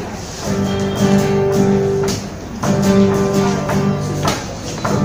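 An acoustic guitar is strummed through chords in two phrases, with a short break about two seconds in and another near the end. This is an instrumental intro with no singing yet.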